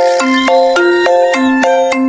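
Children's song music: a bright mallet-percussion tune, marimba or xylophone with glockenspiel, playing quick notes at a steady pace.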